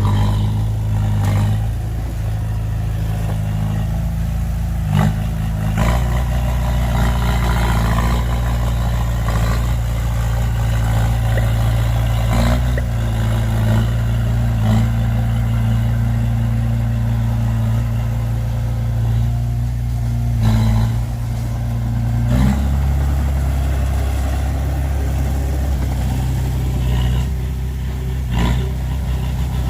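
Heavy diesel vehicle engine running steadily, its speed shifting in steps a few times, with occasional clanking knocks.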